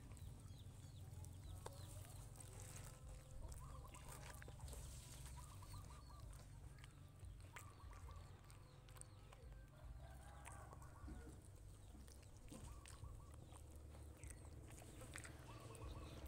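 Faint chicken clucking, a few short calls in the middle, over a low rumble of wind on the microphone and scattered soft clicks.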